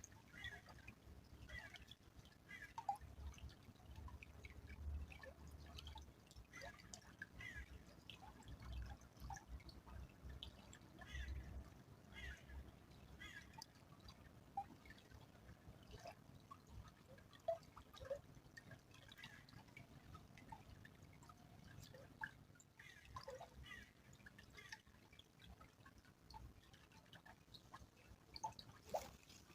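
Faint trickle of a small stream, with water dripping and plinking in scattered little drops.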